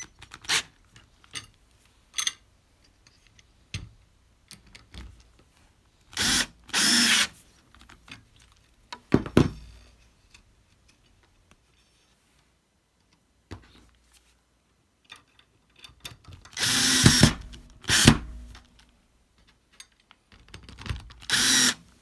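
Cordless drill driving No. 8 screws through an aluminium frame bar into pre-drilled holes. It runs in about four short spurts of a second or so, slowly and not over-tightened, with small handling clicks between.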